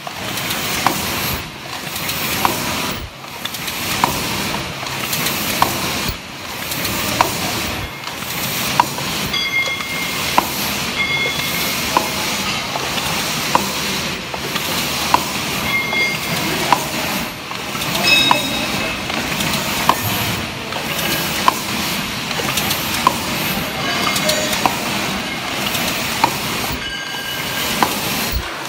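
Double-wall paper cup making machine running: steady mechanical clatter and air hiss, with a sharp click about every second and a half as the machine cycles.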